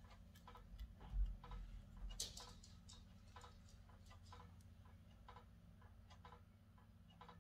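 Silicone mold being pulled off a cured resin casting. There is a low handling bump about a second in and a brief high rustle around two seconds, over faint, steady ticking about twice a second.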